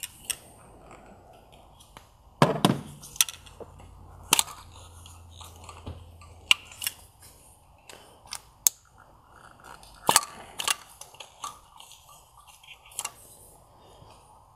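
Plastic electrical connectors and harness clips on a VW 2.5-litre five-cylinder's ignition coils clicking and snapping as they are released and worked free by hand: about a dozen sharp clicks at irregular intervals, the loudest about two and a half seconds and ten seconds in.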